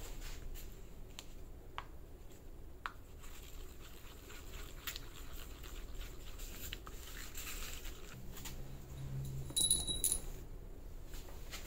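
A small stick stirring and scraping a mixture on a piece of cardboard, with light taps, then metal pool-cue joint pins clinking together with a bright ring as they are set down, near the end.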